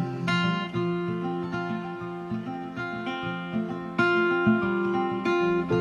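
Background music: an acoustic guitar picking and strumming chords in an instrumental passage between sung lines of a pop song.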